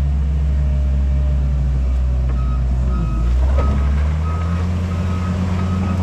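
Heavy diesel construction vehicle's engine running, with its reversing alarm starting about two seconds in and beeping steadily about three times every two seconds as it backs up; the engine note dips and shifts briefly midway.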